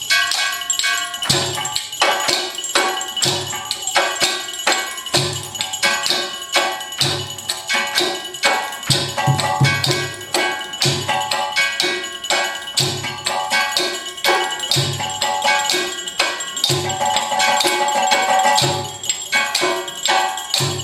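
Live percussion music: a fast run of struck, clicking and jingling hits over a low beat that comes about every two seconds, with ringing metallic tones on top.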